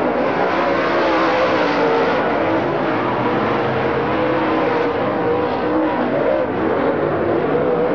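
Loud, continuous motor-vehicle engine noise, its pitch wavering up and down.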